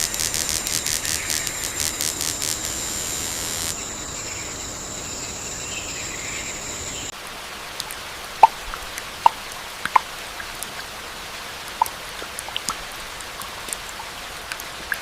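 Rainforest ambience: an insect trills in a high, rapidly pulsing buzz that smooths into a steady high whine and cuts off about seven seconds in. After that, water drips and plinks at scattered intervals over a soft, steady hiss.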